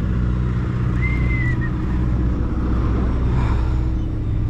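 Sportfishing boat's engine running with a steady low hum. A short high whistle sounds about a second in.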